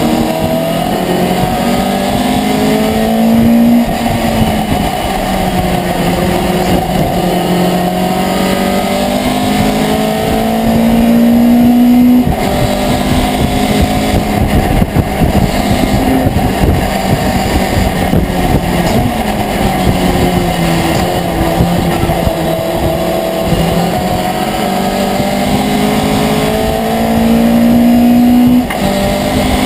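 Racing pickup truck's engine heard from inside the cab at full race pace. Its pitch climbs under throttle and drops back several times as the driver shifts and lifts for corners. The loudest pulls cut off sharply about twelve seconds in and again near the end.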